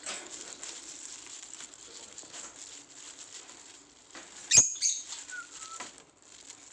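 A bird fluttering its wings and scuffing against a piece of wood as it mates with it, a steady scratchy rustle. There are two sharp knocks about two-thirds of the way through and a short falling chirp just after.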